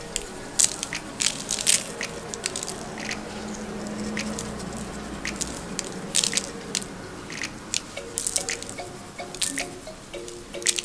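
Poppy seeds sprinkled from the fingers onto egg-washed dough rounds and the parchment-lined tray, landing as scattered small ticks and crackles, with faint music underneath.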